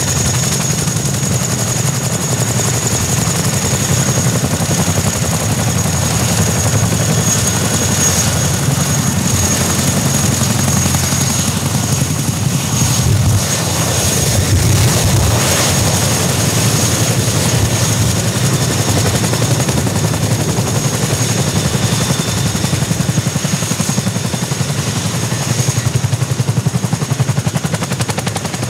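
Boeing CH-47 Chinook twin-rotor helicopter running on the ground: its two turboshaft engines give a steady high whine over the rapid low chop of the tandem rotor blades, loud and even.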